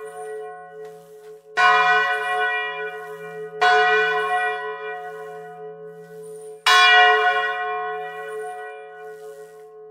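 A swinging bronze church bell with its original clapper and hangings, struck three times, about two seconds and then three seconds apart, each stroke ringing out and slowly dying away over a steady hum, heard close up in the belfry.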